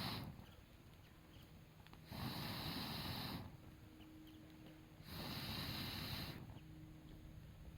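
Long noisy breath-like puffs, each lasting about a second, repeating evenly about every three seconds.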